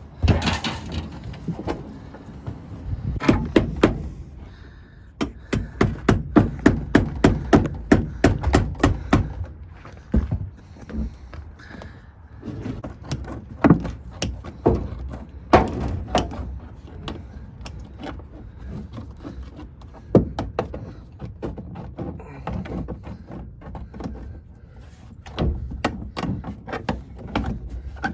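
Hammering and knocking: a fast run of strikes about five a second from about five to nine seconds in, with a shorter cluster before it and scattered single knocks after.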